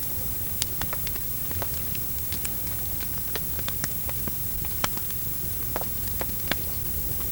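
Campfire crackling: irregular sharp snaps and pops of burning wood over a steady hiss, with a few louder pops.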